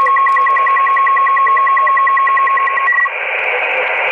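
Digital data signal received on upper sideband through an HF transceiver's speaker. A steady tone runs with a higher tone pulsing about ten times a second, then about three seconds in they give way to a wide, rushing data burst.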